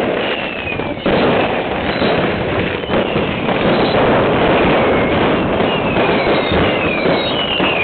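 Fireworks display going off in a continuous barrage of bangs, with several whistles falling in pitch through it.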